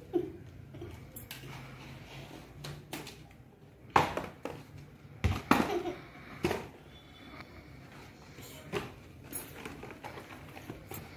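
Knocks and rustles of paper party-hat caps being thrown down and handled, with several sharp knocks between about four and six and a half seconds in.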